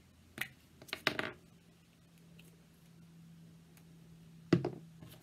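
Craft materials being handled and set down on a wooden tabletop: a few light clicks and knocks in the first second and a half, then one louder knock about four and a half seconds in.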